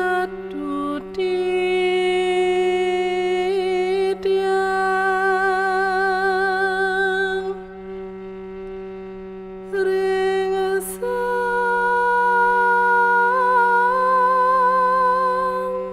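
Slow, solemn music: long held melodic notes with a wavering vibrato over a steady low drone, in two long phrases with a quieter lull about halfway through.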